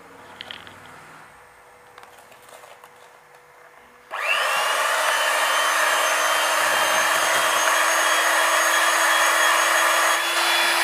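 Electric hand mixer switched on about four seconds in, its motor spinning up quickly and then running with a steady whine as the beaters whisk eggs into creamed ghee and sugar. A few faint taps come before it starts.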